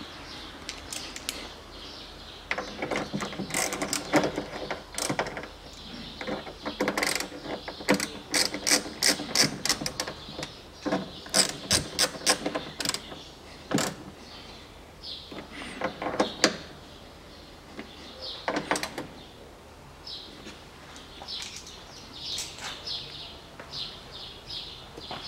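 Hand ratchet clicking in quick runs with pauses as the three mounting bolts of a car's rear door lock mechanism are tightened into the door's edge.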